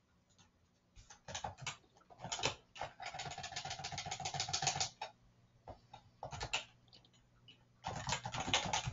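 Typing on a computer keyboard: scattered keystrokes, a fast run of clicks about three seconds in, and another run near the end.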